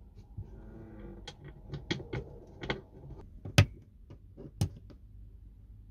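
Sharp clicks and knocks from hands working a cabin wall panel and its switch, about six in all, the loudest about three and a half seconds in.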